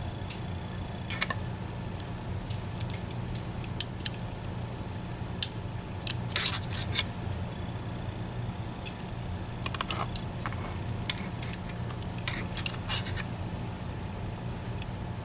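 Lock pick clicking and scraping in the keyway of an EVVA ICS lock as its sliders are worked: irregular small, sharp metal clicks, in clusters around the middle and again near the end, over a steady low hum.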